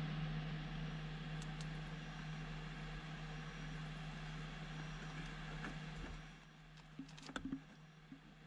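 Steady low hum under an even hiss, with the hiss dropping away about six seconds in, then a few faint clicks.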